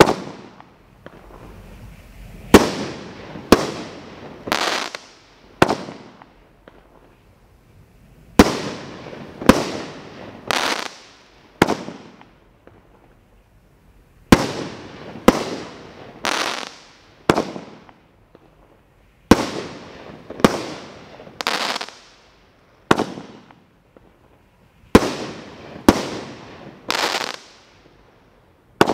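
World Class American Badlands firework cake firing its aerial shots: sharp bangs, each followed by a fading tail of noise, mostly in runs of four about a second apart with short pauses between the runs.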